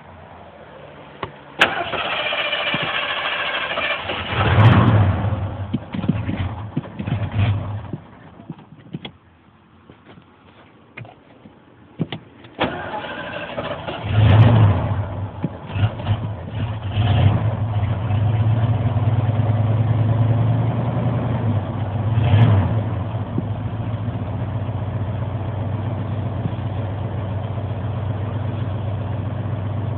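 Warm 1980 Ford F-100's 302 small-block V8 with a two-barrel carburetor being key-started: the starter cranks for about three seconds, the engine catches with a rev, stumbles and dies a few seconds later. About twelve seconds in it is cranked again, catches with a rev and settles into a steady idle, blipped twice.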